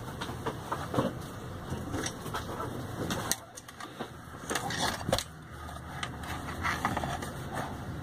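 Handling noise from a Pioneer DEH-1280MP car stereo head unit's sheet-metal chassis: scattered clicks, taps and scrapes of fingers on metal as it is turned over, with sharp knocks about three and five seconds in, over a steady low hum.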